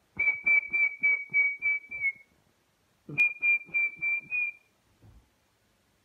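Whistling on one steady high note, broken into two quick runs of short toots, about three a second: seven, then after a short pause five more. A faint low thump follows near the end.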